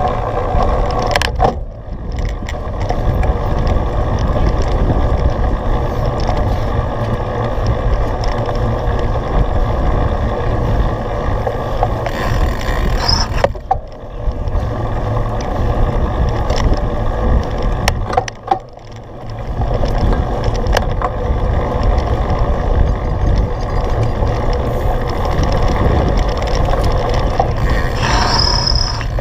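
Cyclocross bike being raced over muddy ground: a dense, loud rumble of tyres and rattling drivetrain and frame. It drops briefly about two seconds in and again around 14 and 18 seconds in, with a few sharp clicks.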